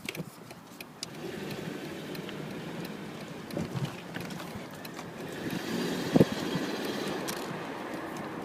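Car engine running under load with scattered rattling clicks and one sharp knock about six seconds in; the owner hears this rattle only under load and cannot bring it on at idle.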